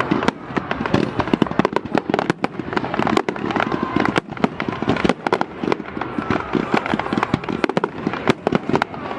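Fireworks display: a dense, continuous run of sharp bangs and crackling reports, several a second.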